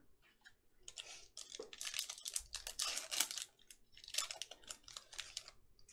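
Foil wrapper of a 2020 Panini Mosaic football card pack crinkling and tearing as it is ripped open by hand, in a series of irregular bursts.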